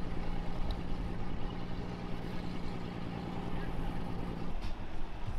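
An engine running steadily at low revs: a low, even hum that stops about four and a half seconds in.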